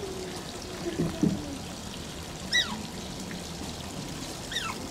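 Asian small-clawed otter squeaking: two short, high calls that fall in pitch, about two and a half and four and a half seconds in, over steady running water. A brief low thump comes about a second in.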